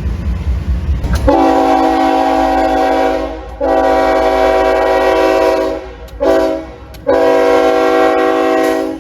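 Locomotive air horn sounding several notes at once as a chord, in the grade-crossing pattern: two long blasts, one short, then a long one. A low rumble comes before the first blast, about a second in.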